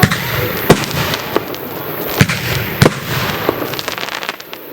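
Small aerial firework shells bursting: a quick string of sharp bangs, a double bang among them, over steady crackling.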